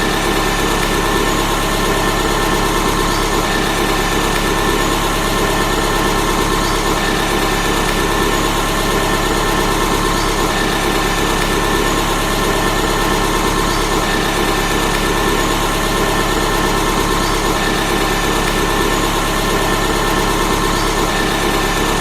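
Car engine idling steadily, with an even, unchanging note.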